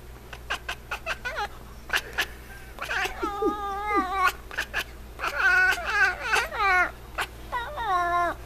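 F6 Savannah cat chattering at prey it is watching: a quick series of clicks, then three bouts of wavering, trilling chirps.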